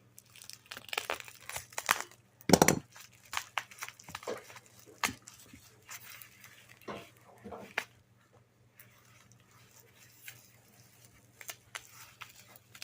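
Bubble wrap being unwrapped by hand: irregular crinkling and tearing with sharp crackles, the loudest about two and a half seconds in, thinning out near the end.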